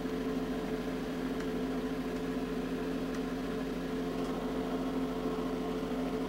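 Steady machine hum made of a few constant low tones, with no change or sudden events.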